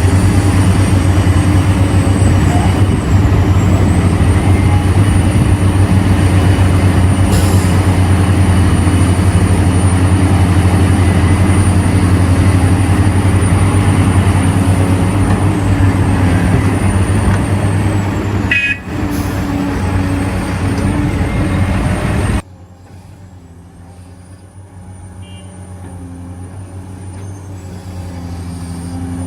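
Heavy diesel engines of mining excavators and haul trucks running steadily under load, with a deep, even hum. About 22 seconds in the sound drops suddenly to a much quieter engine hum that slowly grows louder.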